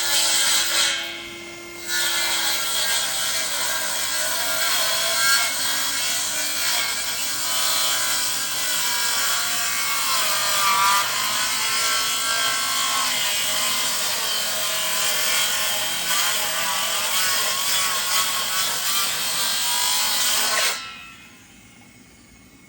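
Power saw cutting through wood, running continuously with a wavering whine, after a brief pause near the start; it cuts off abruptly near the end.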